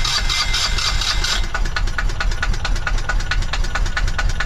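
Small inboard marine diesel of a sailboat running, a fast even clatter of knocks over a low throb. It is running so the newly rewired alternator can be checked for charging.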